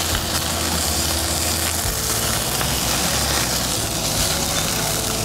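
Rack of lamb sizzling over hot charcoal on a kettle grill, a steady hiss as the melting butter and fat hit the coals, with a low rumble underneath.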